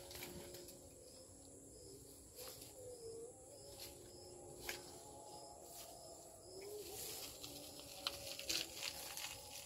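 Faint outdoor ambience: a steady high insect drone, with faint wavering bird calls and a few scattered soft clicks, more of them in the second half.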